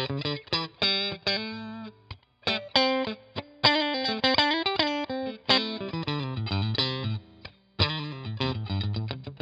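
Fesley ST electric guitar played through an amp on a mostly clean tone: quick runs of picked single notes and chords, with bent, wavering notes in the middle and brief pauses between phrases.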